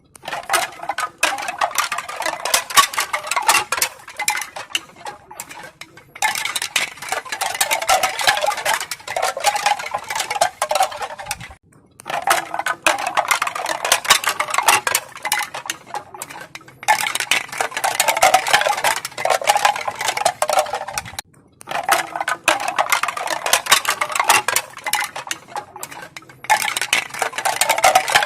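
Pieces of bamboo clattering together in dense runs of rapid, crisp clicks and knocks, each run about five seconds long with short pauses between.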